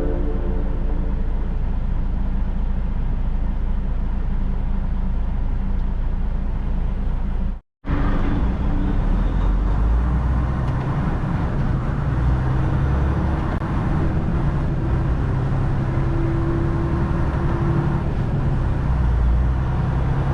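Inside a semi-truck cab on the highway: the diesel engine runs steadily under road and tyre noise. A little before eight seconds in, the sound drops out completely for a moment, then resumes with a low engine hum.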